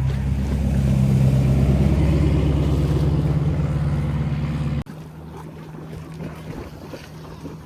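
An engine running steadily with a low hum, loud for the first five seconds, then dropping off suddenly to a quieter hum.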